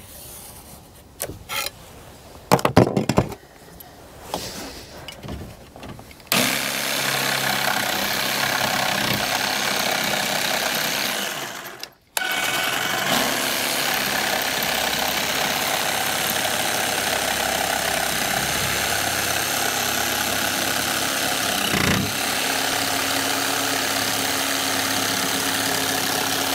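A few knocks, then an electric jigsaw cutting a wooden plank: it runs steadily for about five seconds, stops briefly, then cuts again without a break. Its blade, made for fiberglass and PVC, is shredding the wood.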